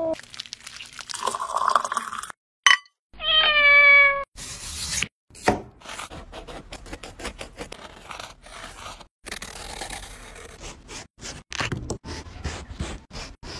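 A cat meows once, a single slightly falling call about three seconds in. Then a knife carves into a melon's rind and flesh in a long run of short scraping, clicking strokes.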